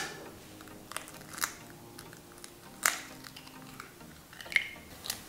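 Chicken eggs being cracked open by hand over a glass bowl: a few sharp cracks and crunches of eggshell, the loudest about three seconds in.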